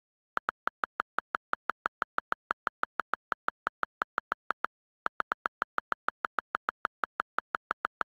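iPad on-screen keyboard click sounds repeating evenly, about six a second, as a key is held down to delete text. The run breaks briefly about five seconds in, then starts again.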